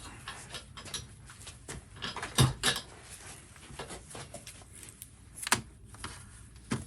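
Scattered clicks and knocks of things being handled on a workbench, with the sharpest knocks about two and a half seconds in and again about five and a half seconds in.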